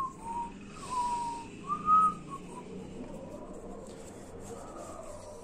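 A person whistling a few short notes that glide up and down, all within the first two and a half seconds.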